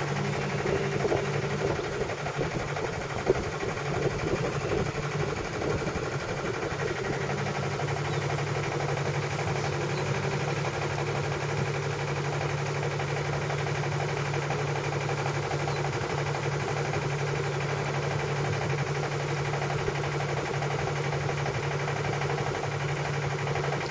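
A boat's motor running steadily and not hard, driving the boat along: a constant low, even hum with vibration. There is one brief louder knock about three seconds in.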